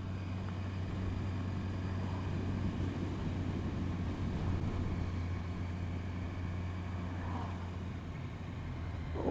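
A motorcycle engine running steadily at cruising speed, with road and wind noise, recorded from the bike as it rides.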